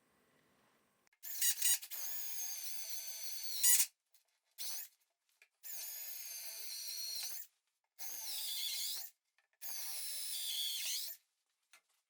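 Power drill running in five short bursts of a high motor whine, starting and stopping abruptly; the pitch sags near the end of some bursts as it comes under load.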